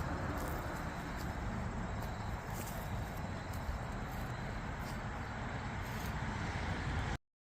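Steady rushing outdoor background noise with a low rumble, cutting off suddenly about seven seconds in.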